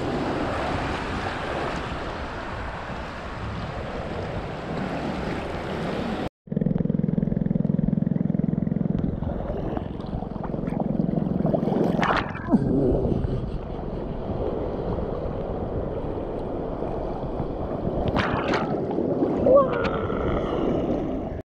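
Shallow seawater sloshing and lapping around people wading, with wind on the microphone. The sound cuts out for a moment about six seconds in and comes back duller.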